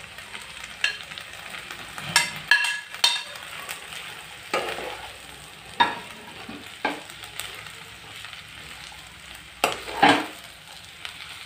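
Sliced ivy gourd frying in hot oil in a nonstick pan, sizzling steadily while a steel spoon stirs it. The spoon scrapes and knocks against the pan a dozen or so times at uneven intervals, loudest near the end.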